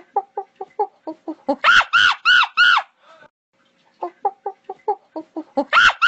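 Monkey calling: a quick run of short hoots, then four loud screeches that each rise and fall in pitch. The same run of hoots and screeches starts again about four seconds in.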